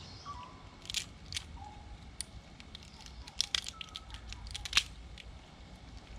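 Cooked mud crab shell being cracked and picked apart by hand: a string of sharp, irregular cracks and crunches, thickest and loudest between about three and a half and five seconds in.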